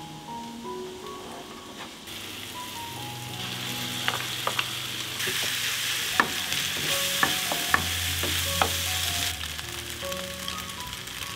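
Rice sizzling in a hot frying pan as it is stir-fried with a wooden spatula, which clicks and scrapes against the pan now and then. The sizzle grows louder a few seconds in and eases off near the end.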